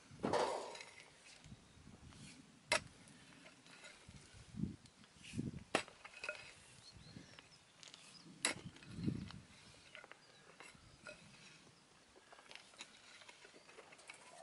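Pickaxe digging into stony, chalky earth: a few sharp clinks of the steel blade on stone, about every three seconds, some with a duller thud as it bites in.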